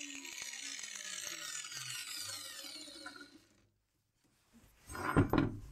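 Angle grinder with a toothed wood-cutting disc spinning down after being switched off, its pitch falling steadily, with light rapid ticking as it coasts. It stops about three and a half seconds in, and near the end come a few loud clunks as the grinder is lifted on its homemade cutting attachment.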